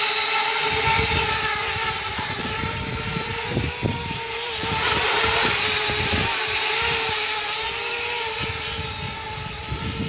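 A homemade cardboard quadcopter's motors and propellers run with a steady buzzing whine that wavers slightly in pitch and swells a little about halfway through, over a gusty low rumble.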